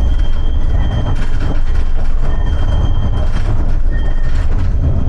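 Inside a Flexity tram running along the track: a steady, heavy rumble from wheels and running gear, with a faint high whine.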